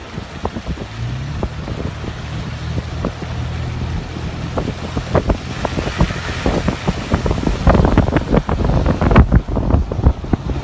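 Toyota FJ Cruiser's 4.0-litre V6 running steadily while driving, its pitch rising about a second in. Many irregular clicks and knocks sound over it, growing denser and louder toward the end.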